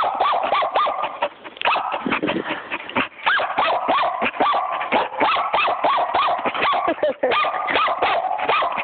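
Puppy barking over and over in quick, high-pitched yaps, about three to four a second.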